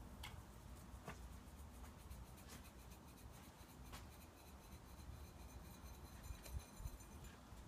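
Near silence: a low wind rumble on the microphone, with a few faint ticks and light scratchy rustles.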